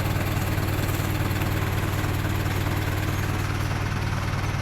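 Isuzu 4HL1 four-cylinder common-rail diesel engine idling steadily, running again after flood water had left it cranking without starting.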